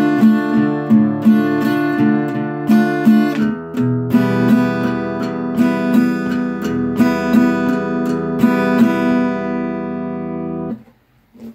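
Acoustic guitar played in a pick, pick, strum, strum pattern: single plucks on one string alternating with strums of the strings below it, in an even rhythm. It is on a D minor chord, changes to E minor about four seconds in, and stops abruptly near the end.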